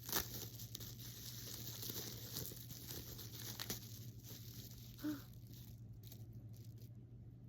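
Packaging wrap crinkling and tearing as it is pulled open by hand, with small crackles and clicks; the rustling stops about six seconds in.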